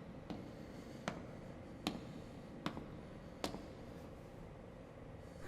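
Faint, slow footsteps: five evenly paced steps about a second apart, each a sharp click, stopping about three and a half seconds in.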